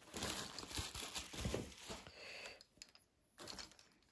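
Toy trains and their packaging being handled and taken out, with irregular light clicks and rustling that stop about two and a half seconds in, then one brief rustle.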